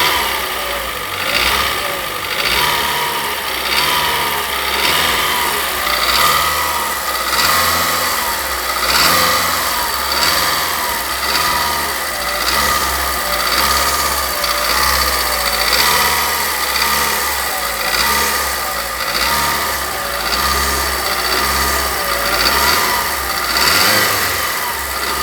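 Volkswagen Voyage G5's EA111 four-cylinder engine being revved in short repeated throttle blips, about one every second and a half. It carries a mechanical noise that the owner suspects is the hydraulic tappets, or possibly a piston.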